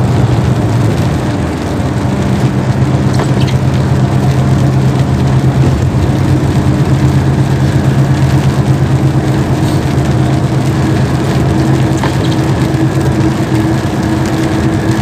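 Inside a truck cab driving in rain: the engine runs with a steady hum while rain patters on the cab roof and the tyres hiss on the wet road.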